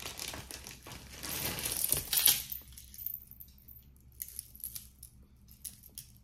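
Pieces of costume jewelry being handled and sorted, clinking and jingling against each other. The jingling is strongest in the first two seconds or so, then thins to a few light, scattered clicks.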